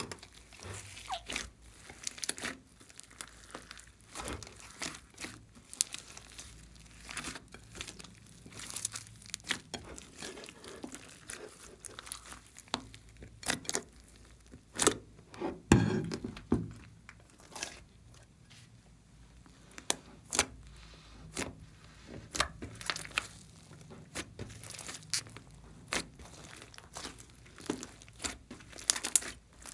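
Slime mixed with clay and floam being squeezed, stretched and pressed by hand, giving irregular crackles and small pops, with one louder squelch about halfway through.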